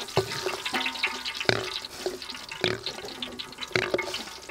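Eggs being dropped one at a time into a steaming metal wok of hot water, each landing with a short knock and splash over the steady bubbling of the water.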